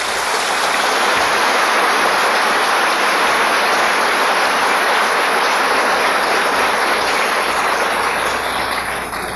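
Audience applauding: dense, steady clapping that swells up at the start and tapers off near the end.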